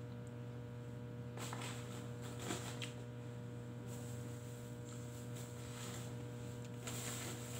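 Steady electrical mains hum with several overtones, with a few faint brief rustles over it.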